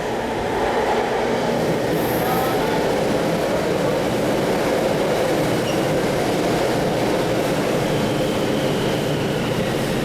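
Bombardier MOVIA 456 metro train running into the station platform: a steady rumble of wheels and traction, with faint high whining tones from its IGBT-VVVF traction inverter.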